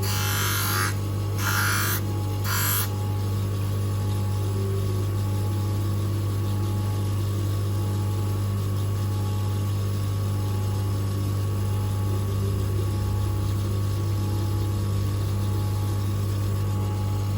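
Electric motor of a manual three-stone lens edging machine running with a steady low hum as the lens is ground.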